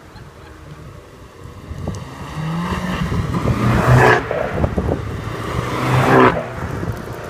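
Cars driving past close by one after another, engine note rising as each approaches. The loudest moments are about four seconds in and again just after six seconds, each ending abruptly as the car goes by.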